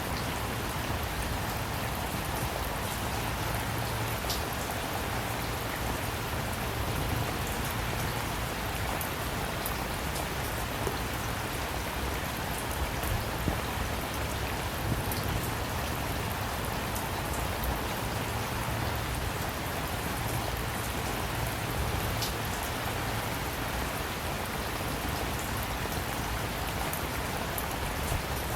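Steady rain falling, with individual drops striking sharply here and there over the even hiss of the downpour.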